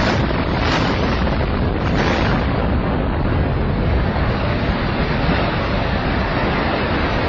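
Explosive demolition of a mid-rise building: a sudden blast, further charges about half a second and two seconds in, then a continuous rumble of the structure collapsing and debris coming down.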